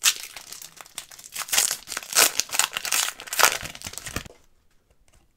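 Foil wrapper of a 2020-21 Upper Deck Series 2 hockey card pack being torn open and crinkled as the cards are pulled out. The crackling runs for about four seconds and stops suddenly, leaving a few faint ticks.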